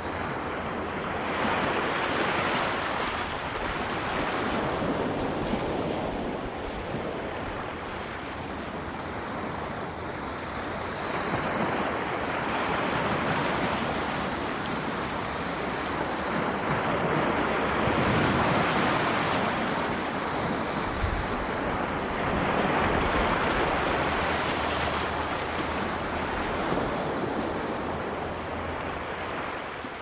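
Sea waves breaking and washing up the shore: a continuous rushing surf that swells and eases every few seconds.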